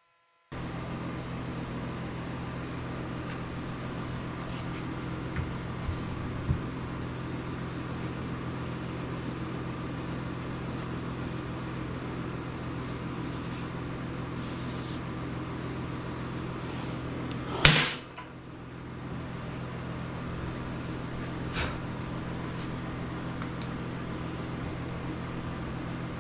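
Steady electrical hum in a workshop, with scattered light clicks and taps of hand tools on the engine. One sharp, loud metallic knock comes about two-thirds of the way in.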